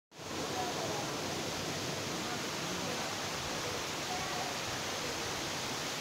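Steady rush of a waterfall and water running over boulders into a rocky pool.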